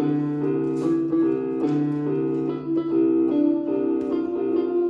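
Yamaha electronic keyboard on its 'Dream' voice (number 155) playing a repeating made-up chord pattern, short chords changing about twice a second over a low held bass note.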